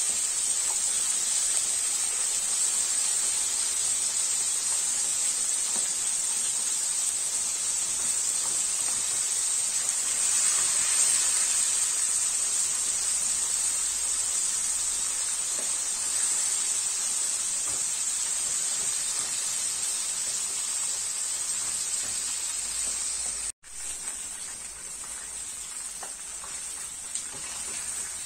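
Chicken drumsticks frying in hot oil in a frying pan: a steady sizzle. About 23 seconds in it cuts out for an instant and comes back quieter.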